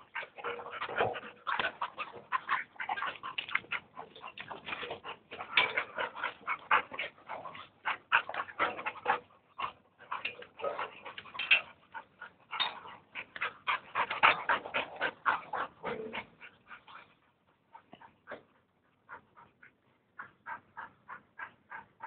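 A dog panting rapidly, close by, in quick short breaths, settling into an even run of about four pants a second near the end.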